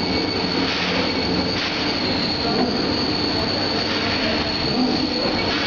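FAST700P 1500 electric dough sheeter running, its motor and conveyor belts giving a steady mechanical noise with a constant high-pitched whine as a slab of dough is carried into the rollers.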